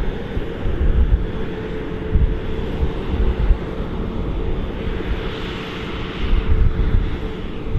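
Claas self-propelled forage harvester running under load while chopping maize, a heavy steady drone with a held hum, mixed with the tractor running alongside; wind buffets the microphone in low gusts.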